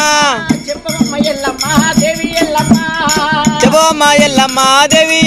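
Oggu katha folk devotional singing: a voice holding long notes that slide up and down, over a steady drum beat and a jingling rattle. The voice dips about half a second in and comes back strongly from about a second and a half.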